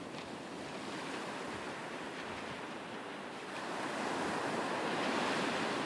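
Ocean surf washing, a steady rush of waves that swells louder about three and a half seconds in.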